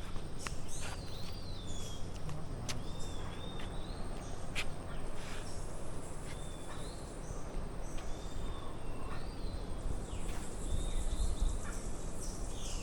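Birds calling: short arched whistled calls repeated every second or two, over a steady background hiss and a low hum.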